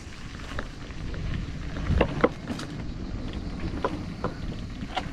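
Mountain bike being ridden over a rough trail, heard from the bike: low rumble of tyres and wind on the microphone, with a few sharp rattles and knocks from the bike over bumps.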